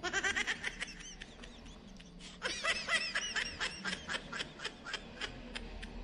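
Laughter sound effect: a rapid, high-pitched giggle in two runs, a short one at the start and a longer one from about two and a half seconds in that trails off.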